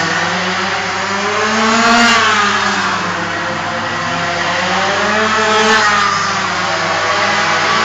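Small minibike engines running laps, their pitch rising and falling as the riders accelerate and ease off, with peaks about two seconds in and again near six seconds.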